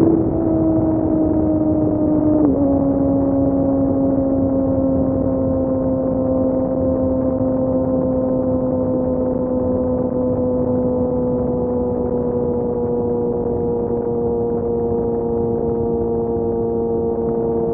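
Kawasaki Ninja ZX-6R's inline-four running loud through an M4 exhaust with no dB killer, with a brief, sudden drop in pitch about two and a half seconds in. The pitch then falls slowly and starts rising again near the end, over a steady rush of wind noise.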